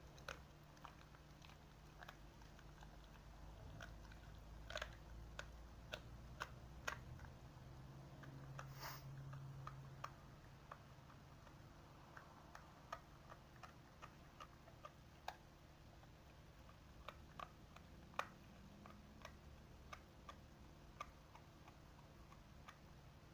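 Dogs chewing: faint, irregular crunching clicks, sometimes several close together, with a short hiss about nine seconds in.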